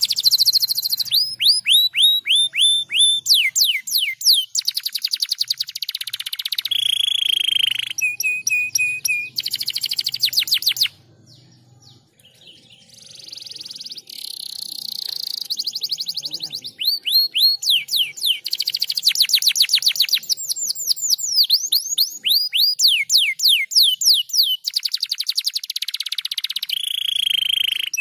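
Domestic canary singing: long runs of rapid trills made of quick falling whistled notes, with a few held notes. The song breaks off briefly about eleven seconds in, then starts again.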